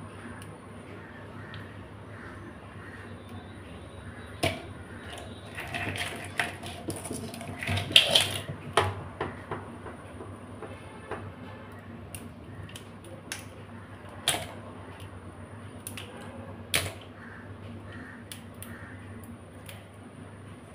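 Raw crab shells and legs cracking and snapping as they are broken apart by hand: scattered sharp cracks, with a busier stretch of crunching and snapping in the middle.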